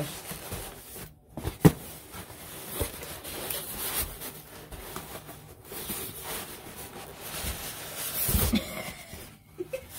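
Large cardboard shipping box being handled and turned: cardboard scraping and rustling, with a sharp knock about one and a half seconds in and a low thump near the end.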